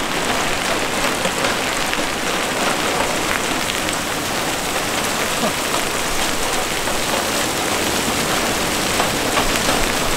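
Hail falling steadily onto wet concrete pavement: a dense, even patter of many small impacts.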